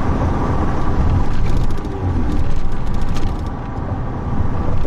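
Steady low rumble of a car on the move, heard from inside, with a cluster of light clicks between about one and a half and three seconds in.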